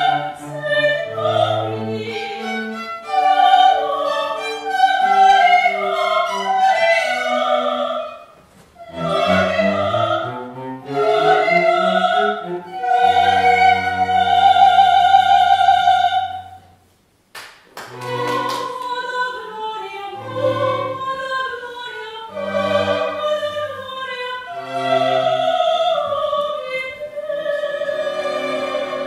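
Classical soprano singing with a small string ensemble of violins and cello, in a full vibrato voice. About halfway through she holds one long high note. The music then stops for about a second, with a couple of sharp clicks in the gap, before voice and strings resume.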